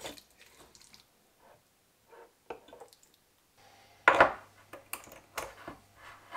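Wooden spoon scraping and scooping wet wild garlic salsa verde out of a granite mortar into a glass jar. About four seconds in, the glass lid of the clip-top jar knocks shut, followed by a few smaller clicks as the wire clasp is closed.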